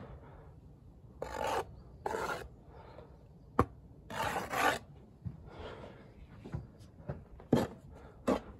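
Steel brick trowel scraping sand-and-cement mortar in a series of short strokes, picking it up from the mortar board and working it on the stones, with two sharp knocks, the first about three and a half seconds in and the second near the end.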